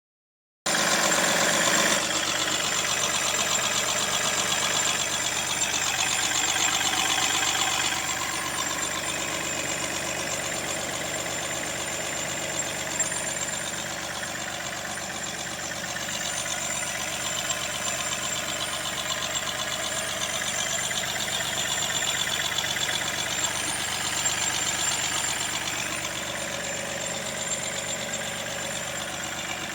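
Mahindra TUV300's three-cylinder diesel engine idling, with a strange squeaky noise from the engine whose source the owner cannot find. The sound starts about half a second in and stays steady, a little louder for the first several seconds.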